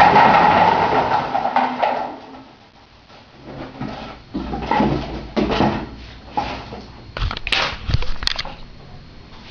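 A pile of Coca-Cola bottles tumbling out of a closet in a clattering rush that dies away after about two seconds, followed by scattered knocks and clunks as bottles settle and roll, with two sharp clicks near the end.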